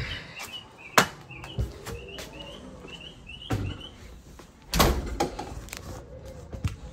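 A house door being opened and shut, giving a few sharp knocks and bumps, the loudest just under five seconds in. In the first half a small bird outside chirps a quick run of short chirps.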